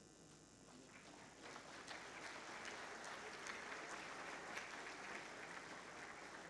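Audience applauding, fairly faint, building up about a second in and easing off near the end.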